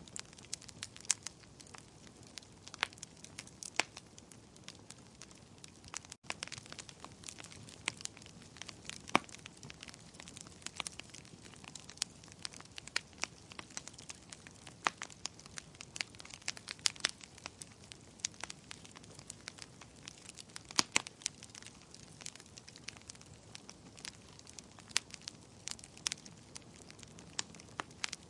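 Bonfire crackling: irregular sharp pops and snaps from the burning wood over a low steady hiss of the flames.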